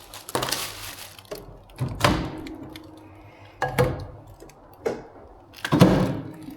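A series of about six knocks and thuds, a second or so apart; the last, near the end, is the loudest.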